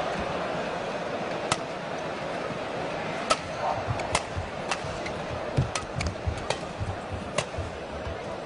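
Badminton rally: sharp racket strikes on the shuttlecock roughly once a second, the first about a second and a half in, with low footfall thumps on the court. A steady arena crowd murmur runs underneath.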